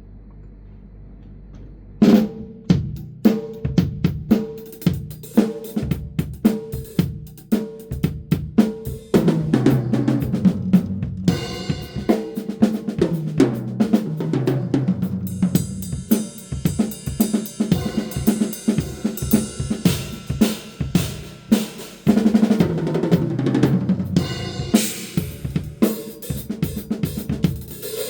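Drum kit played through a phone's microphone. A steady beat of kick and snare starts about two seconds in, followed by tom fills stepping down in pitch, and then cymbals and hi-hat join for the second half.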